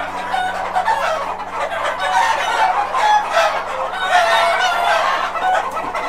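A large flock of desi chickens, mostly roosters, clucking and calling over one another in a dense, continuous chorus of short calls.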